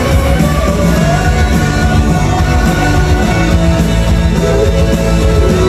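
A live pop-rock song: a man singing into a handheld microphone over a band backing with guitar and a steady low beat, played loudly through the venue's sound system.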